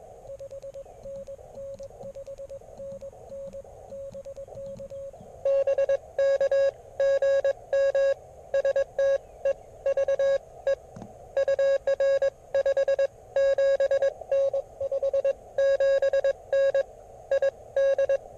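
Morse code (CW) from an Elecraft KX3 transceiver's speaker, keyed at a single steady pitch. A fainter signal gives way about five seconds in to a much louder, harsher one that keys on and off quickly.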